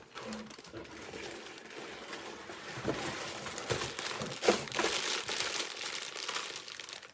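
Plastic LEGO parts bags crinkling as they are handled, with a few soft knocks among the rustling.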